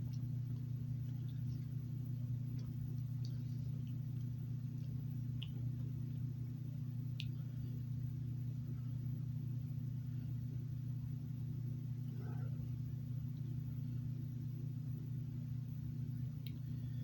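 Steady low hum of room tone, unchanging throughout, with a few faint scattered clicks.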